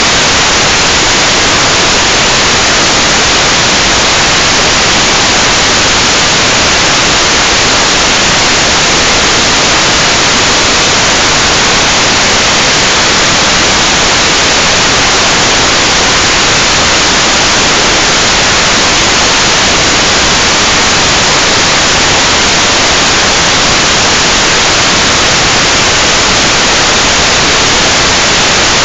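Loud, steady static hiss from an analog FPV video receiver with no signal: the picture shows only snow and a blue screen.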